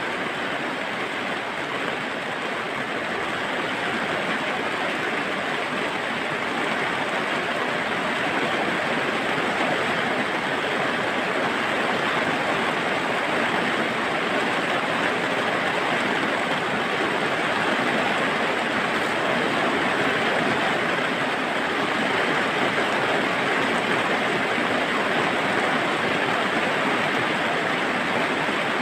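Steady rushing noise, even and without distinct knocks or tones, growing slightly louder over the stretch.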